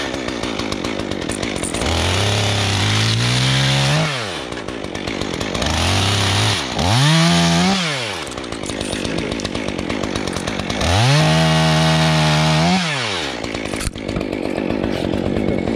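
Stihl chainsaw revved up three times while cutting limbs off a spruce. Each time the engine climbs in pitch for about two seconds, then drops back toward idle between cuts.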